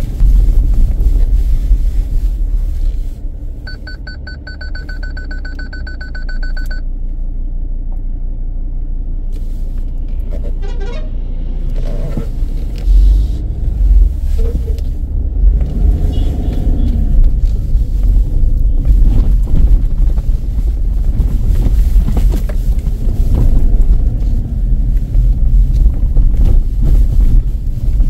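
Low rumble inside a Ford Endeavour SUV's cabin as it drives over a rough, unpaved gravel road, tyre and suspension noise rising and falling with the bumps. A pulsing high-pitched tone sounds for about three seconds a few seconds in.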